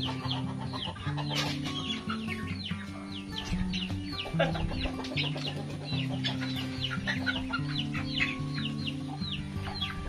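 A flock of young chickens, mostly Rhode Island Reds, keeps up a stream of short, high peeps that fall in pitch, several a second, mixed with clucks. Background music with held low chords plays underneath.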